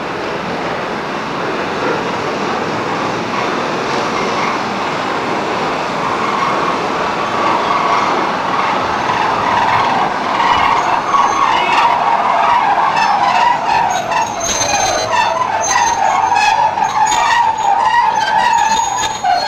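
Goods wagons of a steam-hauled freight train rolling slowly past on jointed track, the noise growing louder. From about halfway the wheels squeal, and in the last few seconds sharp clicks and a high squeal join in.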